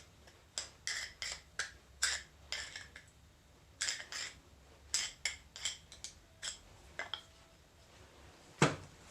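Small steel parts of a hydraulic control valve clinking and knocking as its spool section is handled and taken apart: irregular light clicks, then one louder knock near the end.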